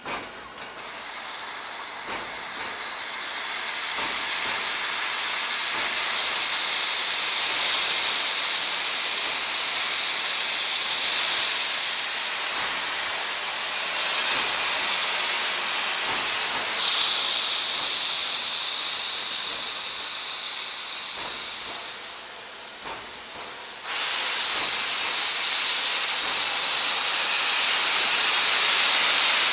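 Clover Valley Lumber Co. No. 4 steam locomotive blowing steam from its open cylinder drain cocks in a loud, continuous hiss. The hiss builds over the first few seconds, drops away briefly about 22 seconds in, and cuts back in suddenly about two seconds later.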